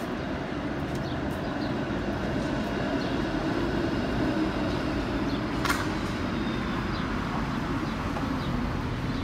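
Steady city street traffic noise, with one sharp click about halfway through.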